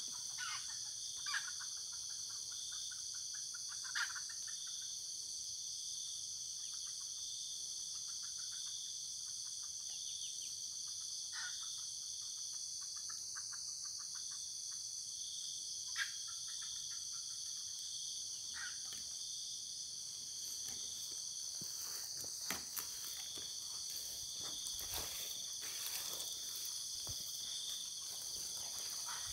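A steady, high-pitched chorus of forest insects, with scattered short bird calls. A few sharp knocks and rustles come in the last few seconds.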